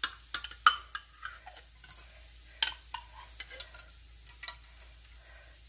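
A metal spoon tapping and scraping against a baking dish as thick tomato passata is spooned in and spread across the bottom. The taps are irregular, with a few sharper clicks in the first second and again about two and a half and four and a half seconds in.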